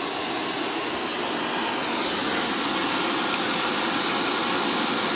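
Old town-gas burner ring converted to run on propane, burning with a steady hiss as it heats a thick bronze ring hot enough to melt solder.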